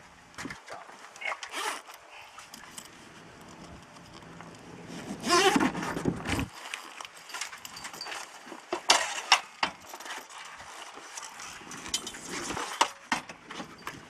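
Hardware being handled: scattered clicks, knocks and rattles, with a louder drawn-out scrape about five seconds in.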